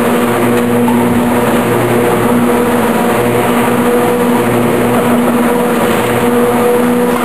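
Automatic wood shavings baler running: a loud, steady machine hum with a constant low drone over mechanical noise.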